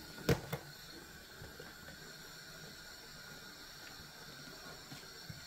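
A spatula knocks twice against an aluminium pot in the first second, then a steady low hiss as the pot of coconut-milk sauce simmers on the gas stove.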